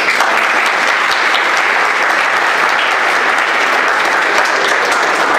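Loud, steady applause from a seated audience, many hands clapping at once.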